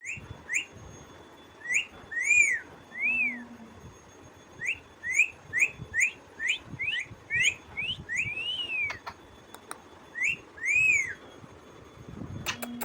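A parrot calling with a string of short, rising whistled notes, some in quick runs, and a few longer notes that rise and fall. A few sharp clicks come near the end.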